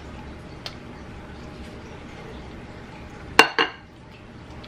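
A small glass bowl set down with two quick clinks about three and a half seconds in, the glass ringing briefly after each.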